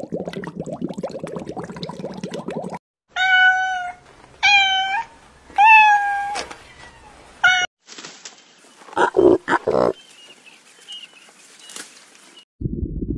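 A cat meowing four times in short, pitched calls, starting about three seconds in. Before that comes a fast pulsing animal call, and after the meows a few short low sounds and a faint thin whistle.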